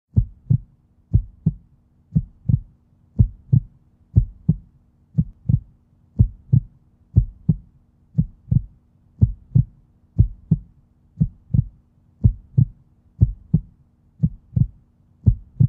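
Heartbeat sound effect: low double thumps, lub-dub, repeating steadily about once a second.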